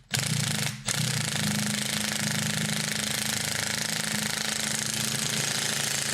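Impact wrench hammering steadily as it turns a threaded rod to draw a new rear suspension bush into a wishbone. It stops briefly just under a second in, then runs on. The bush is nearly home but not fully seating.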